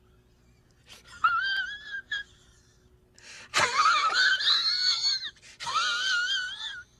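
High-pitched, wavering wailing cries, three in a row: one about a second in, a louder one starting sharply midway, and a third near the end.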